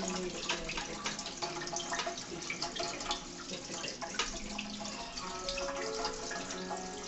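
Aquarium filter water running and splashing into the tank, a steady trickle with many small irregular drips and plinks.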